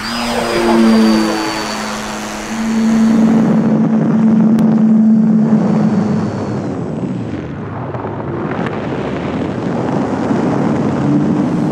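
Electric motor and propeller of a Parkzone Corsair RC model plane in flight: a steady high motor whine and a propeller hum over air rushing past. The whine ends about seven seconds in.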